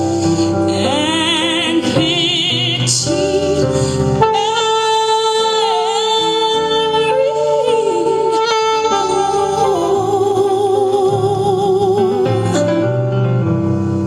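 Saxophone playing a slow melody with long held notes and vibrato over a backing track that includes singing.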